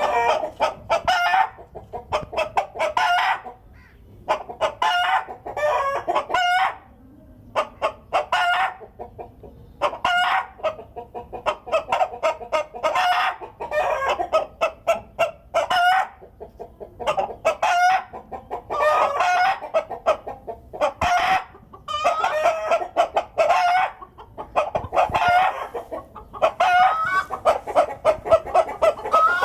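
Chickens cackling and clucking in loud, repeated bursts, the noisy egg song hens make around laying an egg.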